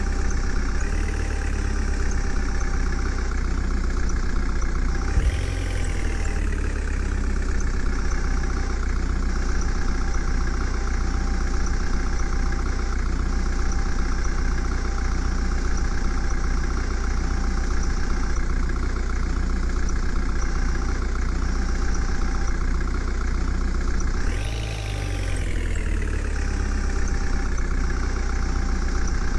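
Heavy diesel engine of a truck or mini excavator running steadily at idle, rising briefly in pitch and falling back twice: once about five seconds in and again about five seconds before the end.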